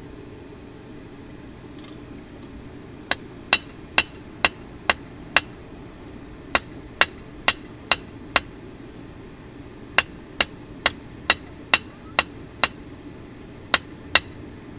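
Hand hammer striking the red-hot tip of an old cold chisel on an anvil, forging it from a wide edge down to a narrow center-punch point. Sharp metallic blows come about two a second in runs of five to seven with short pauses, starting about three seconds in, over a steady low hum.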